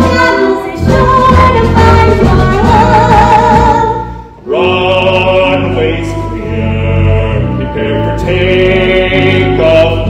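Musical-theatre ensemble number: a chorus singing over instrumental accompaniment, with a short break about four seconds in before the music comes back.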